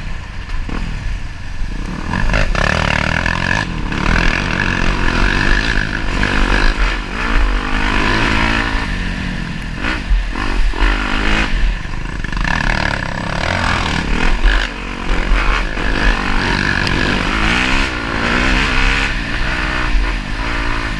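Dirt bike engine revving up and down as the bike rides fast along a rough dirt trail. Its pitch climbs and drops repeatedly, with quick throttle blips near the end.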